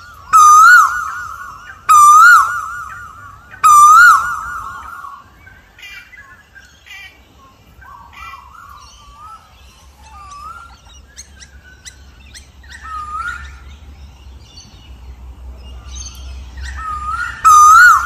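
Asian koel calling: three loud, wavering calls about a second and a half apart at the start, then fainter, more varied calls, and the loud calls start again near the end.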